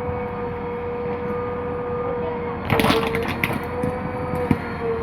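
JCB 3DX backhoe loader running with a steady whine, with a cluster of sharp cracks and knocks a little past halfway and another near the end as the machine digs.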